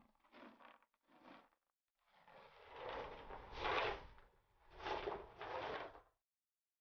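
Broom bristles sweeping dried cat droppings and litter grit across a bare floor. A few short strokes come first, then several longer, louder sweeps that stop abruptly about six seconds in.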